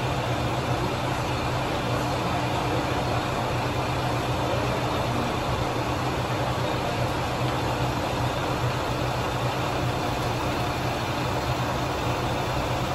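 Diesel railcar idling at the platform: a steady low engine rumble with an even hiss above it, unchanging throughout.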